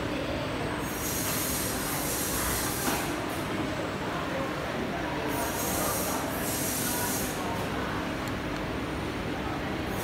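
Steady machinery noise with a faint low hum and a high hiss that comes and goes every second or so, typical of a running factory floor.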